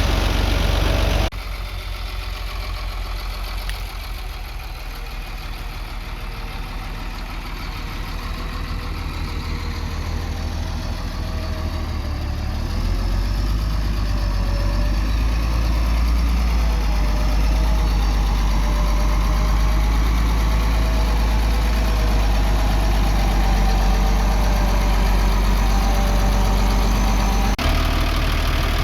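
Diesel engine of heavy earth-moving machinery running steadily. It cuts abruptly about a second in, then grows gradually louder and deeper until it holds a strong low running sound through most of the rest, with another abrupt cut near the end.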